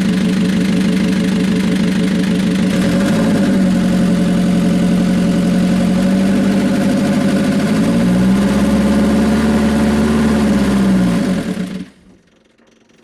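Kia van diesel engine running loud at high revs, its pitch sagging and recovering under load, then dragging down and cutting out about twelve seconds in as it is stalled in gear with the brakes on.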